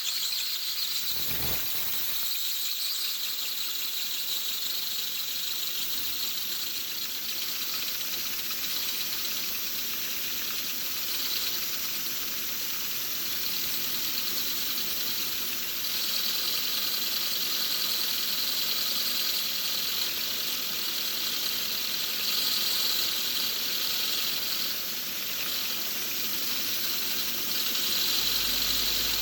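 10-inch Tesla disc turbine spinning up on agricultural hex-bore bearings made for low speed and high load: a steady high squeal over a hiss, a little louder in the second half. These are the bearings the builder calls bad, with lots of resistance at high speed.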